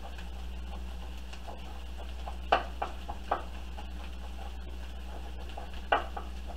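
Chef's knife tapping and knocking on a bamboo cutting board while ginger is minced fine: light ticks throughout, with a few sharper knocks about two and a half to three and a half seconds in and again near the end. A steady low hum runs underneath.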